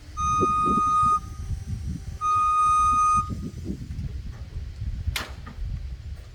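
Two steady high-pitched toots, each about a second long and a second apart, over a low rumble, then a single sharp click about five seconds in.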